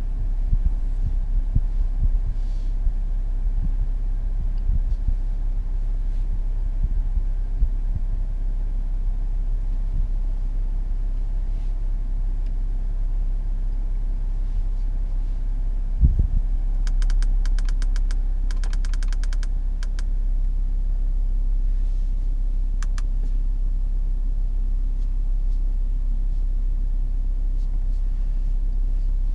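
Steady low hum of the Jaguar F-Pace's 3.0-litre V6 diesel idling, heard inside the cabin. A thump comes about halfway through, followed by a quick run of sharp clicks from the dashboard controls for a few seconds, and a couple more clicks a little later.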